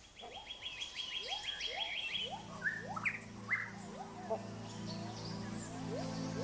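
Forest birds calling: a fast chattering trill at first, then a run of short upward-sweeping whistled notes, about two a second. A low steady drone comes in underneath about two seconds in.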